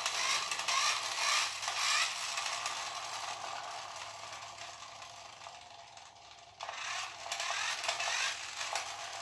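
Light-up toy bubble blaster's small geared motor whirring as it turns its bubble wheel. It dies away over several seconds, then starts again suddenly about two-thirds of the way in.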